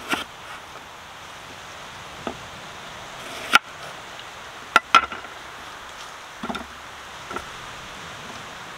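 A cleaver chopping a red onion on a wooden board: a handful of sharp knocks of the blade on the wood at uneven intervals, the loudest around the middle, over a steady faint hiss.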